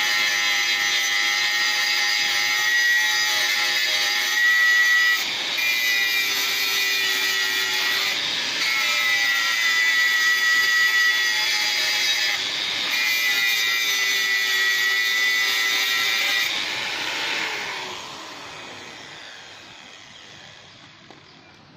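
Handheld angle grinder with its disc against a steel fence frame: a steady high whine with grinding hiss, easing briefly a few times. About 17 seconds in it is switched off and the whine falls away as the disc spins down.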